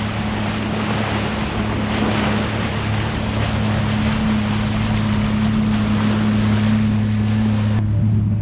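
Sea-Doo Switch boat's engine running at a steady speed, a constant hum under loud wind and water rush. The rush drops away suddenly near the end, leaving the engine hum.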